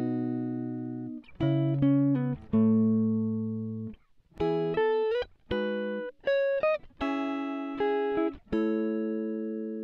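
Background music: a plucked guitar playing a slow melody of single notes and chords, each struck sharply, then ringing and fading before the next.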